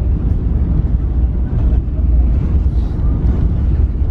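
Airliner cabin during the landing roll, with the ground spoilers up: a loud, steady low rumble of the engines and of the wheels on the runway as the plane slows.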